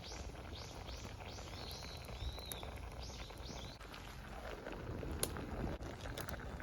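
A small bird calling a rapid series of short, high chirps, about two a second, for the first four seconds, with one longer slurred note among them. A few sharp clicks follow in the second half.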